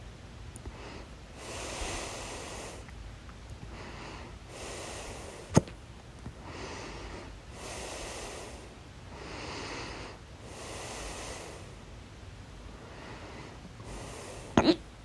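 A person breathing heavily in and out, a breath every second or two, with a sudden loud hiccup about five and a half seconds in and another, doubled hiccup near the end.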